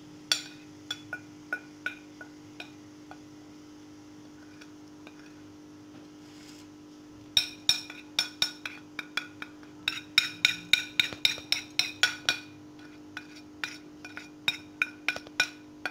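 A spoon clinking against a ceramic plate and glass bowl as spices are tapped off into the bowl: a few scattered clinks at first, then quick runs of clinks, about three or four a second, in the second half. A steady low hum sits underneath.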